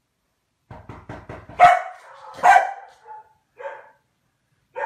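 Komondor barking: a quick run of short faint sounds, then two loud barks just under a second apart, followed by two softer ones and another loud bark near the end.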